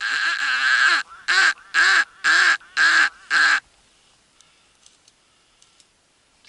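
Mallard quacking in the loud, descending hen-style series: one long quack followed by five shorter quacks at about two a second, then quiet.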